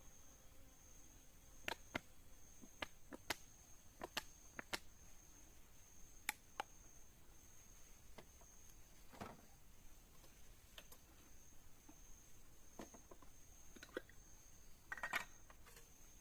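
Quiet forest ambience: a steady, thin, high-pitched insect drone under about a dozen scattered sharp clicks and snaps. A brief louder rustle comes about fifteen seconds in.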